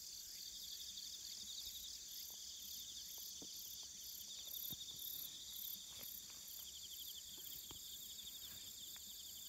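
Steady insect chorus: a fast-pulsing high-pitched chirring with a slower pulsing beat above it, plus a few faint clicks.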